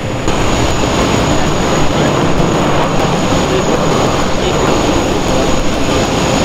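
Steady jet aircraft noise on an airport apron: a dense roar with a thin, steady high-pitched whine over it. It gets louder about a third of a second in.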